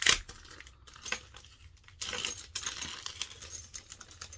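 Small hard RC car clutch parts clicking and clinking as they are handled, with one sharp knock right at the start, scattered lighter clicks after it and a brief rustle about two seconds in.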